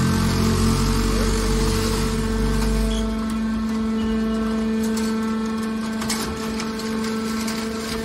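Hydraulic scrap metal baler running with a steady hum while its ejection ram pushes a compressed bale of scrap metal out of the chamber. A heavier low rumble under load drops away about three seconds in, leaving the lighter hum with a few faint clicks.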